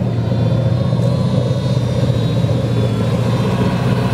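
Indmar V8 direct-drive inboard engine of a 2001 Moomba Outback ski boat running steadily, a low, even hum.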